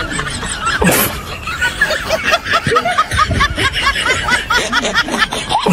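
A quick run of short, high laughs, about four a second, through the middle, with a sudden falling sweep about a second in.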